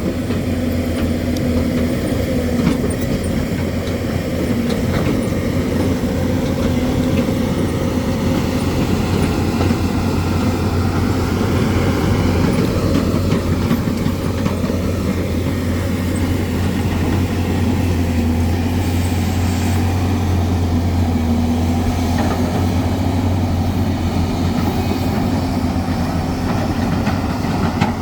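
Hyundai excavator's diesel engine running steadily with a low, even drone.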